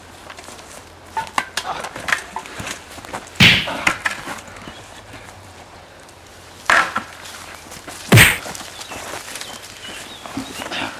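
Footsteps and scuffling on a dirt and leaf-litter forest path during a fight, with scattered knocks and three louder thuds about three and a half, seven and eight seconds in.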